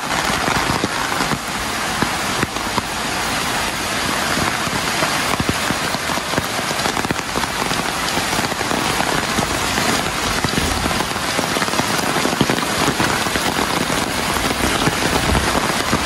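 Heavy rain falling steadily: a dense, even hiss made of countless small drop ticks.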